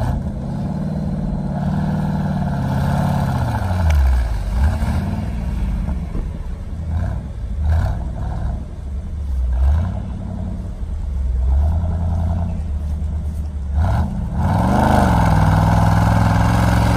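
Jeep engines revving in repeated surges, rising and falling in pitch, as a lead Jeep strains on a tow strap to pull a Jeep Wrangler stuck in deep snow. From about three-quarters of the way through, an engine holds at a steady, higher speed under load.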